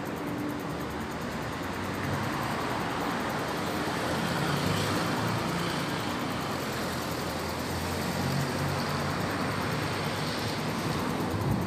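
Steady road traffic on a city avenue: cars running past as a continuous rumble, swelling slightly now and then.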